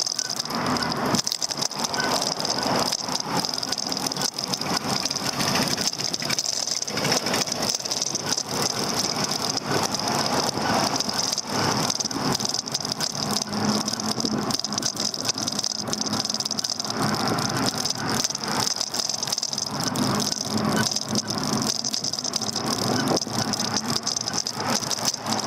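Daymak Max e-bike rattling and clattering continuously over the road, heard through a camera mounted on its handlebar, with a steady high whine underneath.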